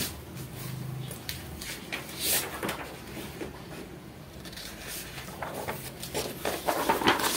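Scattered light knocks and clicks of objects being handled, with rustling that grows busier near the end. A low steady hum fades out about a second in.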